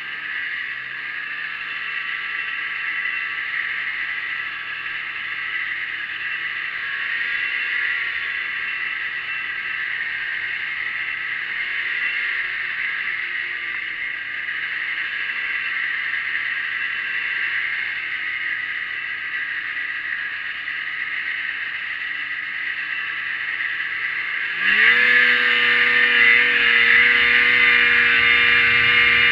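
1987 Arctic Cat Cougar snowmobile's two-stroke engine running at a steady cruising pace, its pitch drifting gently up and down. About 25 seconds in, the throttle is opened and the engine note jumps sharply higher and louder, then holds at high revs.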